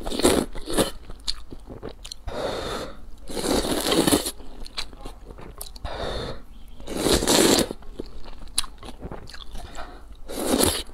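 A person slurping wide noodles out of broth, with several long slurps and wet chewing between them.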